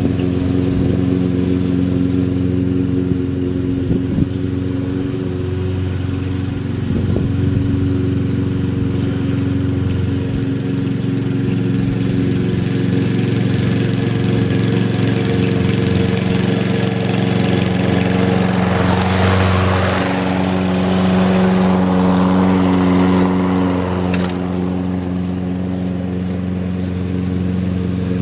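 Lawn mower engine running steadily at a constant speed. Past the middle a rushing noise swells over several seconds, then stops suddenly.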